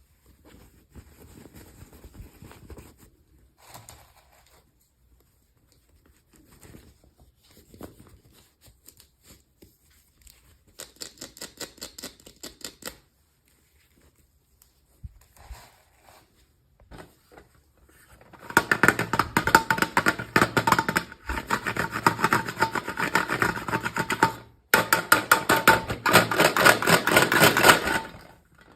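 Toy packaging being handled and opened: soft rustling and clicking at first, then loud, rapid crinkling and crackling of plastic wrapping from about two-thirds of the way in, with two short pauses.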